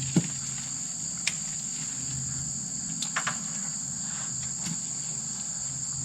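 Steady, high-pitched insect chorus of crickets chirring, with a few short clicks and snaps over it, the loudest just after the start.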